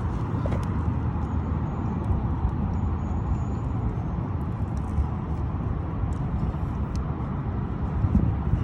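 Steady low rumble of passing road traffic, with a few faint ticks.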